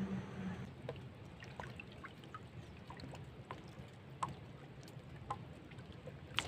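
Water lapping and trickling against the hull of a small boat, with scattered light drips and ticks.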